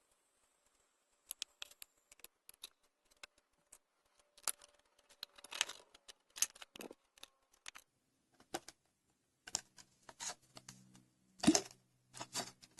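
Small objects being handled at close range: irregular clicks, snips and crinkles, with one louder knock about two thirds of the way through, near the end.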